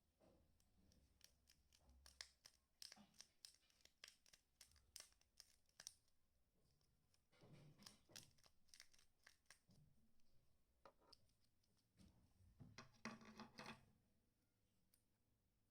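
Faint clicks and taps, with two short stretches of scraping or rustling, as small objects are handled.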